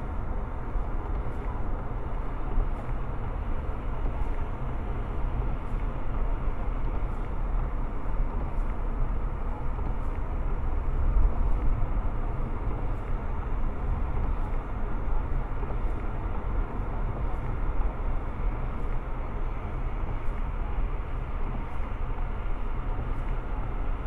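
Steady road noise from inside a moving car's cabin at highway speed: a deep drone of engine and tyres with a hiss of tyres on a wet road surface.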